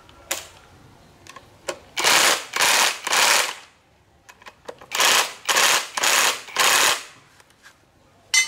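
Cordless impact wrench hammering on the bolts of a differential carrier in short bursts: three bursts, a pause, then four more. A sharp clack comes near the end.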